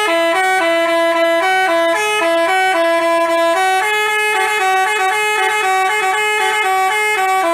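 Basuri-type multi-tone telolet bus horn playing a quick melody, jumping between a few notes several times a second.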